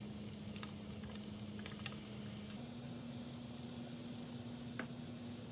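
Glass noodles and minced meat sizzling in a hot stainless steel pan as sauce is poured over them, with a few light ticks and a steady low hum behind.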